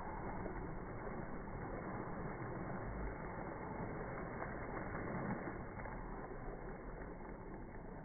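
Pool water splashing and churning around a child, slowed down and pitched deep by slow-motion playback, so it sounds dull and muffled with no brightness. It runs as a steady wash of low noise without clear individual splashes.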